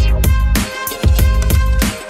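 Electronic background music with a steady beat and heavy bass.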